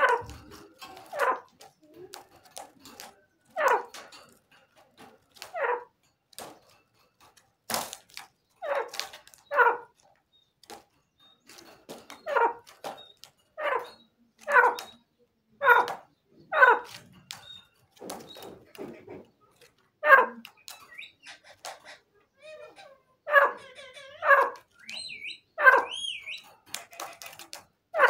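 Caged francolin (teetar) giving short, sharp, harsh calls over and over, one every second or two at uneven gaps.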